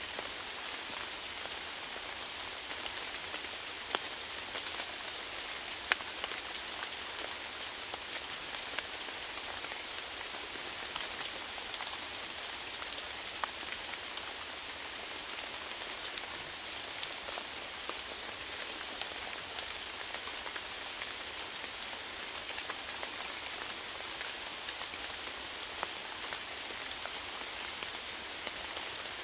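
Steady rainfall: a constant hiss of rain with scattered louder individual drops ticking on a surface.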